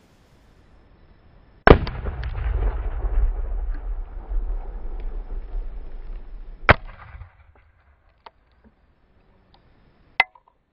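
Homemade Tannerite exploding target detonating, set off by a rifle round: a sharp blast about two seconds in followed by several seconds of deep rumble, then a second sharp blast after about five seconds. Near the end there is one more short, sharp crack.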